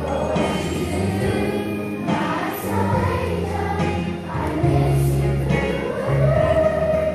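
Children's choir singing a song together over an instrumental accompaniment with held bass notes.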